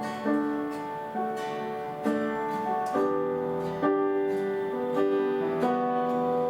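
Instrumental worship music: sustained chords with a new chord struck about once a second, with no singing.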